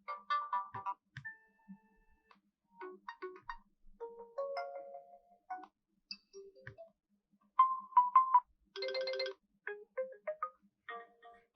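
Oppo Reno7 Lite 5G built-in alarm tones previewed one after another: short melodic chimes, each stopping after a second or so, with brief silences between them.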